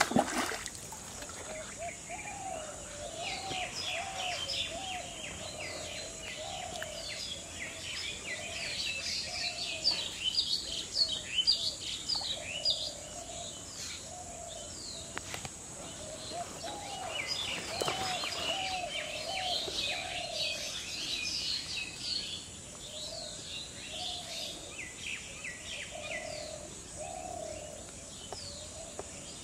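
Birds chirping and singing in spells of quick, repeated high notes, with a lower call repeating underneath and a steady high-pitched hum behind them. A brief sharp noise comes right at the start.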